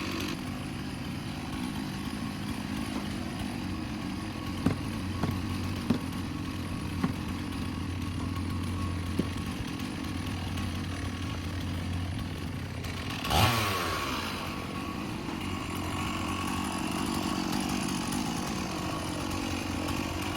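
Chainsaw engine running steadily, with a few sharp knocks in the first half. About two-thirds of the way through comes a loud rev that falls quickly in pitch.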